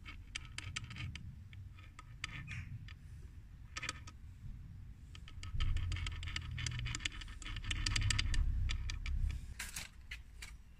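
Light clicks and rattles of small metal parts, scattered at first and coming thick and fast from about five to nine and a half seconds in, over a low rumble.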